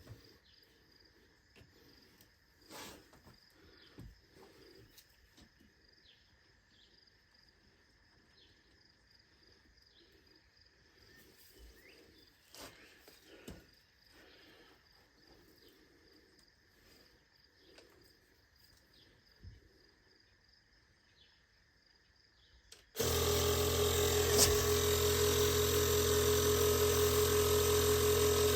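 Faint steady outdoor background with a few small knocks, then near the end a small portable electric air compressor switches on abruptly and runs with a steady pitched hum.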